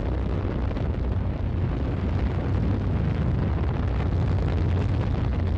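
Soyuz-2.1b rocket's first- and second-stage engines in ascent flight, a steady deep rumble with a crackly texture. The engines are running normally.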